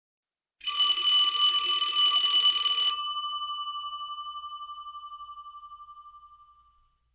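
Electric alarm bell ringing with rapid clapper strikes for about two and a half seconds, then stopping and ringing out, fading over the next few seconds.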